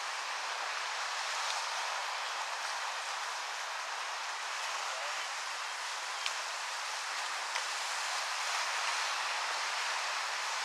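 Sea surf washing on the shore as a steady, even hiss. Two faint clicks sound about six and seven and a half seconds in.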